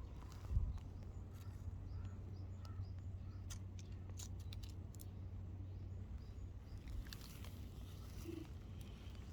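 Faint outdoor ambience: a steady low hum, with a single knock about half a second in and scattered light clicks and ticks.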